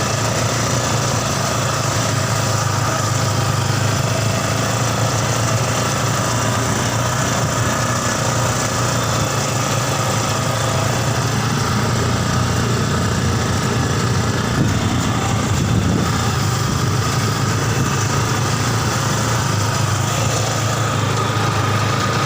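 Yamaha Scorpio Z 225 cc single-cylinder four-stroke motorcycle engine in a mini buggy, running steadily.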